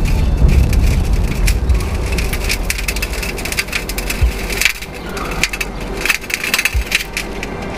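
Crackling and scraping as a sheet roof panel is pried up by hand out of its rusty metal frame, with many sharp cracks spread through the lift.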